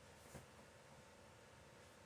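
Near silence: faint room tone, with one small click about a third of a second in.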